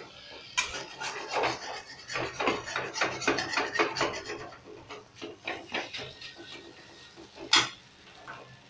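Metal spatula scraping and stirring mashed-potato filling around an aluminium kadhai: a quick run of rubbing scrapes against the pan that thins out after about six seconds, then one sharp clink near the end.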